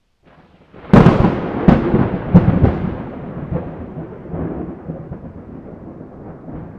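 A thunderclap: a loud, sharp crack about a second in, three more cracks close behind it, then a long rolling rumble that slowly fades away.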